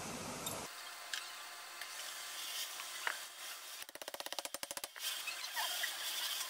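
Light metallic clicks of valve seats and steel mandrels being set into a heated cylinder head, over a faint steady hiss, with a quick rattle of about a dozen ticks near the middle.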